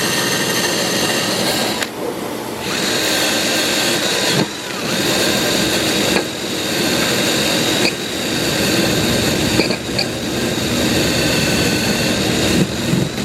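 Power tool running in repeated bursts with short pauses between them, driving the bell housing bolts onto the transmission.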